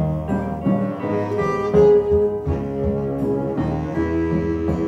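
Instrumental music with low strings and a steady bass line, played through a pair of Xavian Giulietta floorstanding loudspeakers. There is no singing yet.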